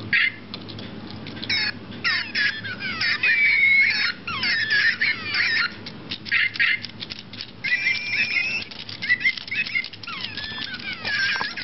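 Several Micropets electronic toy pets going at once: overlapping high electronic chirps, squeaks and warbling beeps, broken by short clicks.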